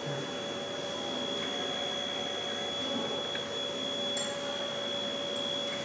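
Steady electrical hum and whine of operating-room equipment: two constant pitched tones, one low and one high, over a steady background hiss, with a faint click about four seconds in.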